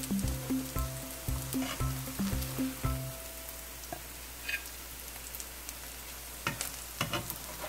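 Mugwort pancakes sizzling steadily in hot oil in a nonstick frying pan, with a spatula clicking and scraping against the pan a few times in the second half as it slides under a pancake. Background music with a steady beat plays over the sizzle for the first three seconds, then stops.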